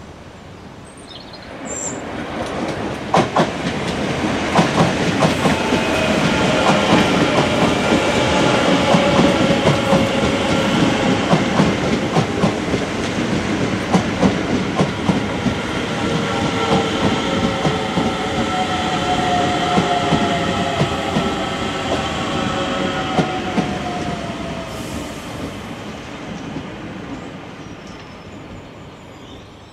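DART electric commuter train running past over jointed track, its wheels clicking over the rail joints in a clickety-clack. It swells as the train comes by, is loudest midway, and fades as it goes away, with a faint whine that falls in pitch in the later part.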